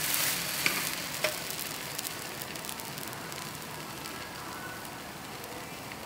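French toast sizzling in oil in a nonstick frying pan just after being flipped: the hiss is loudest at first and then settles to a steady sizzle. Two sharp clicks come about half a second and a second in.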